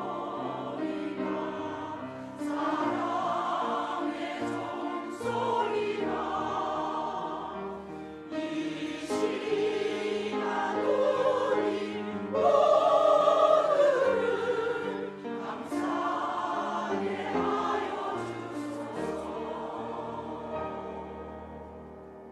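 Church choir singing a Korean choral anthem in sustained chords, swelling to its loudest held passage about twelve seconds in and then fading away toward the close.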